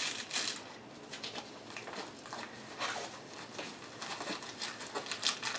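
Faint rustling and scattered small clicks of plastic packaging being handled, such as a diamond painting kit's zip-top bags and tool pieces.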